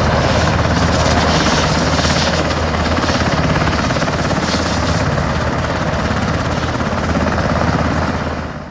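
U.S. Army UH-60 Black Hawk helicopters, with twin turboshaft engines, running on the ground: a loud steady rotor and turbine din that cuts off suddenly near the end.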